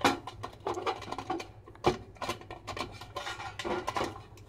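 Handling noise from the sterilizer's metal tube housing: irregular clicks, knocks and scraping as the faulty fluorescent-tube choke (ballast) is unfastened and taken off.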